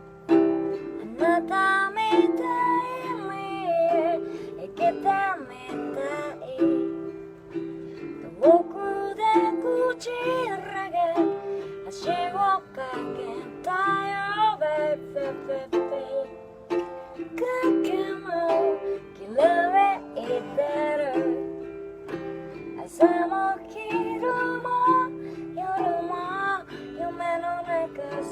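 Music: a strummed ukulele-like plucked-string accompaniment under a gliding, wavering melody line.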